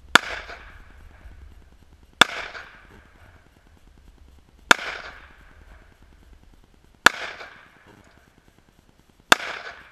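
Five gunshots, roughly two and a half seconds apart, each a sharp crack with a short echoing tail.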